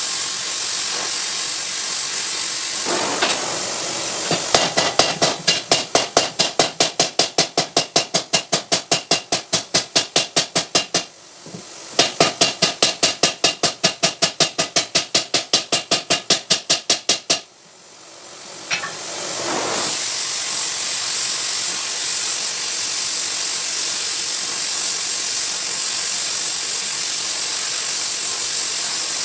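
Rapid, evenly spaced hammer blows on metal, about five a second, in two runs of several seconds with a short pause between, over a steady forge hiss.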